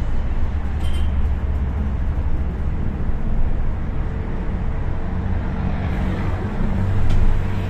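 Volvo Caio Procity city bus running along the road: a steady low engine drone with road noise, a faint steady whine joining about halfway, and a couple of light clicks.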